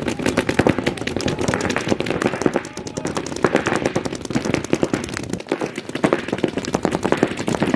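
Several paintball markers firing rapid, overlapping strings of shots as in a speedball game.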